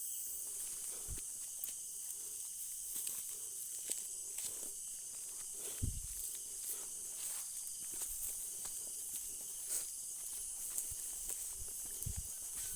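Steady high-pitched hiss of night insects, with scattered footsteps and rustling as someone walks through a cornfield; a few soft thumps, the clearest about six seconds in and near the end.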